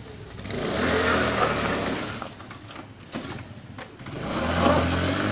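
Honda Activa 3G scooter's 110 cc single-cylinder engine revved hard twice, swelling about half a second in and again near the end, with a few sharp knocks in the lull between.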